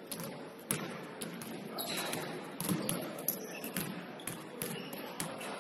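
Basketballs bouncing on a hardwood gym floor: a string of irregular sharp thuds a second or less apart, over faint chatter.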